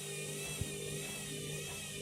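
Candy washing machine running mid-cycle with bedding in the drum: a steady motor whine made of several tones, the higher ones wavering slightly in pitch, with a single light knock about half a second in.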